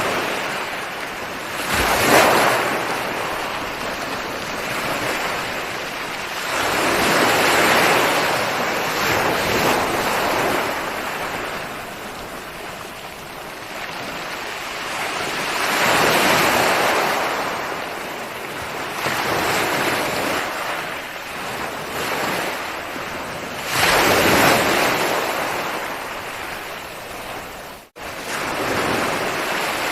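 Ocean waves breaking on a shore, a hiss of surf that swells and fades in slow surges several seconds apart, with one sudden split-second dropout near the end.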